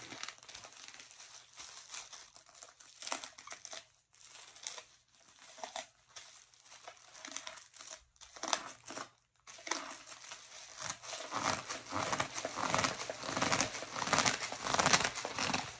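Long acrylic nails tapping and scratching on a plastic poly mailer package, with the plastic crinkling as it is handled. Scattered taps at first, then a denser, louder run of crinkling and rustling over the last few seconds.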